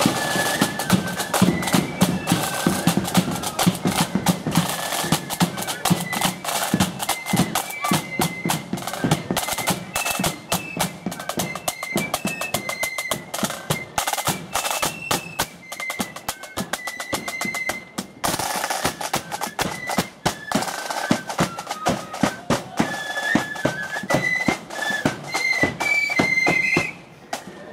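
Marching flute band playing: a high flute melody over rapid, busy snare drumming and a bass drum, dropping away briefly near the end.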